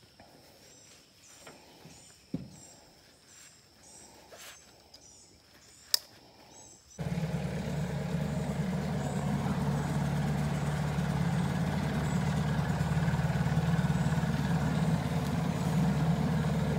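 Faint high chirping and a couple of sharp clicks, then, about seven seconds in, a small outboard motor on a jon boat starts running steadily with the boat under way.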